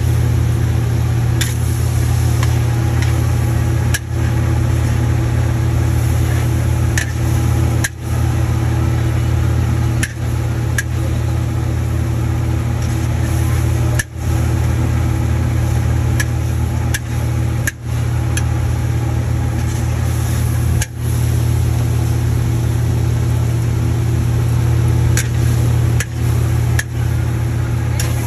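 A steady, loud, low machine hum, with a metal spatula clinking and scraping against a wok every second or two as noodles are stir-fried.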